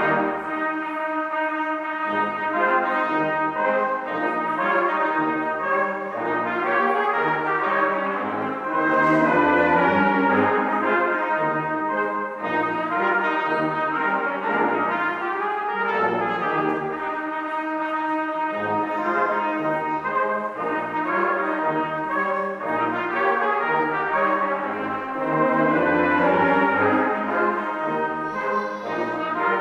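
A Posaunenchor, a church brass ensemble of trumpets, trombones and tuba, playing a piece in several parts in harmony over a moving bass line.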